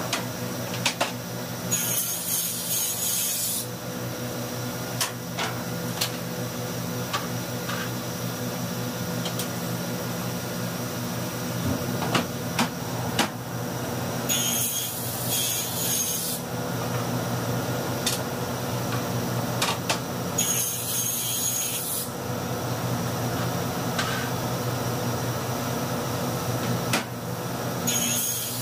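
Table saw running steadily, cutting through wood panels in four short stretches: about 2 s in, around 14 s, around 20 s and near the end. Between cuts, panels slide and knock on the saw table.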